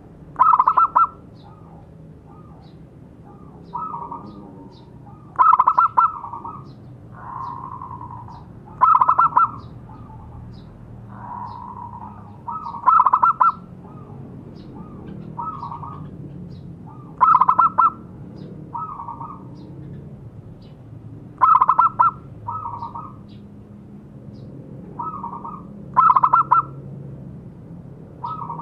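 Zebra dove (perkutut) cooing: a loud cooing phrase roughly every four seconds, with softer cooing notes in between.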